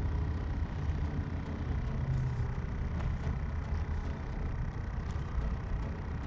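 Steady low outdoor rumble of road traffic and wind, with a few faint clicks.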